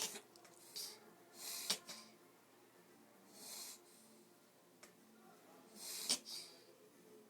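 A dog with kennel cough reverse sneezing: about four loud, noisy pulls of air through the nose a second or two apart, two of them ending in a sharp snap.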